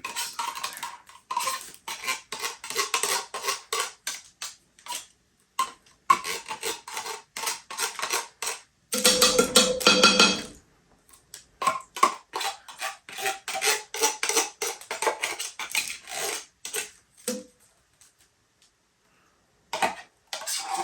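A metal knife scraping and clinking inside a tin can and against a pot, working thick condensed cream of chicken soup out of the can, in quick irregular strokes. About nine seconds in there is a louder stretch of continuous scraping lasting over a second.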